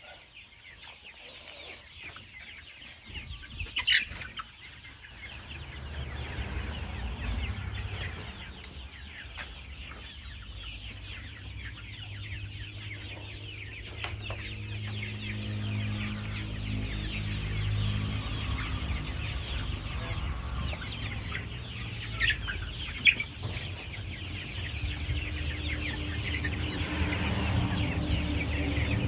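A flock of desi chickens clucking and chattering continuously, with two single louder calls standing out. A low steady hum sits underneath from a few seconds in.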